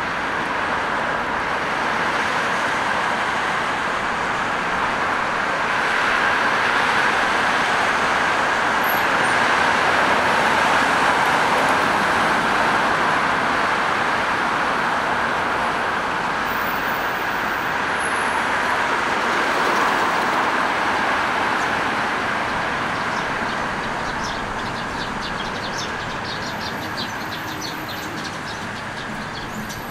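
Road traffic passing on a multi-lane city street: a steady noise of tyres and engines that swells and fades as vehicles go by. Near the end the traffic noise eases and a run of short high chirps comes in.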